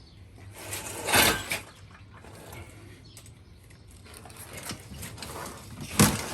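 Hand tools and metal trike parts being handled while a bolt or bracket is worked loose: a louder scrape about a second in, small handling noises, and a sharp metallic click near the end.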